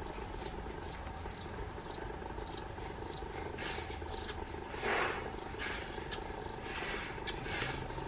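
Russet sparrow chirping at its nest hole: short high chirps repeating about twice a second, with harsher, fuller calls joining from about halfway through, the loudest about five seconds in.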